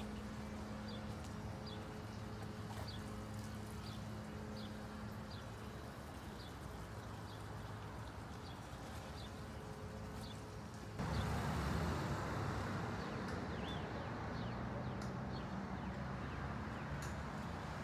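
Outdoor ambience: a steady low hum under background noise, with a short high chirp repeating roughly once a second. About eleven seconds in, the background noise suddenly grows louder.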